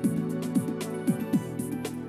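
Background music with a steady beat over sustained chords.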